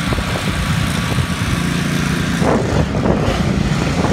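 Strong wind buffeting the microphone, a steady rumbling roar with surf hissing underneath.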